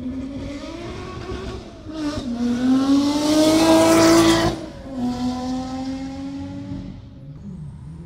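Ferrari sports car engine at high revs, accelerating with its pitch climbing to a loud peak about four seconds in, after a brief dip in pitch near two seconds. The pitch and level then drop sharply, and the engine note holds lower and fades away near the end.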